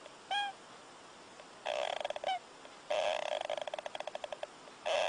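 An animal snoring in rattling bursts of fast pulses, with short squeaky whistles between the snores.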